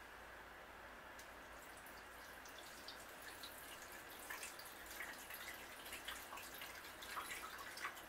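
Water poured from a glass carafe into the KitchenAid KCM08OB coffee maker's resealed water reservoir to test it: a faint trickle with drips that come more often in the second half.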